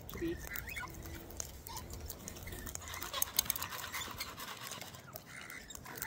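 Sulphur-crested cockatoos crunching and nibbling seed with their beaks: a scratchy run of fine clicks, densest about halfway through, with a few soft bird calls.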